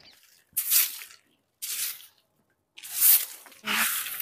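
Short hand broom sweeping dry grass and fallen banyan leaves on dirt ground: four separate strokes, each about half a second long.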